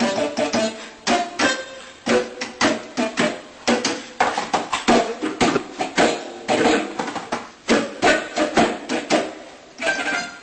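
Electronic keyboard solo: a quick melodic run of notes, each struck sharply and fading.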